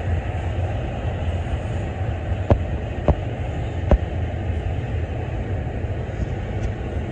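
Union Pacific freight train rolling past: a steady low rumble of the cars on the rails, with three sharp clanks around the middle.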